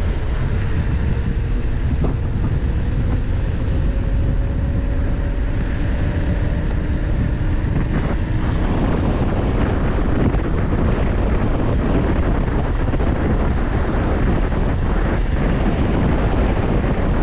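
Steady, loud wind rush on a handlebar-mounted camera's microphone as a bicycle rides along a paved lane, mixed with the rumble of its tyres on the tarmac.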